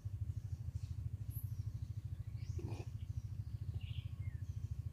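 A steady low fluttering rumble, with a few short high bird chirps over it.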